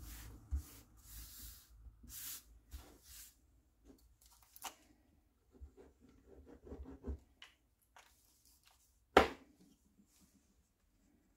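Paper and card strips being handled, slid and rubbed down on a paper craft mat, with scratchy rustles, light taps, and one sharp knock about nine seconds in.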